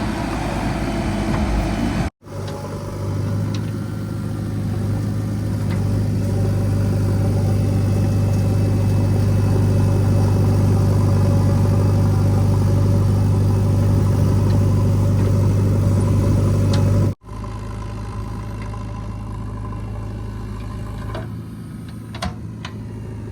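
Diesel engine of a heavy farm or construction vehicle running steadily with a strong low hum. The sound breaks off abruptly twice, about two seconds in and again near seventeen seconds, and picks up again each time at a different level.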